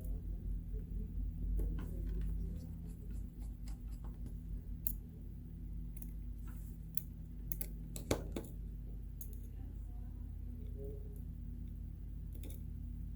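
Small sharp clicks and taps of precision repair tools against a smartphone's screws and frame during reassembly, with a cluster of louder clicks about 8 seconds in, over a steady low electrical hum.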